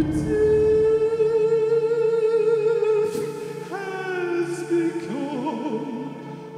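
Live operatic-style singing into a microphone: a male voice holds long notes over a steady low keyboard drone, slides up to a new note about halfway through, and wavers with vibrato near the end.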